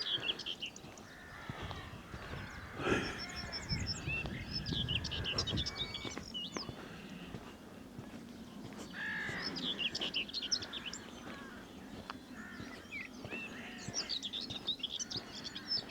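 A group of crows cawing and squabbling, with smaller birds chirping in repeated bursts. A brief loud noise about three seconds in.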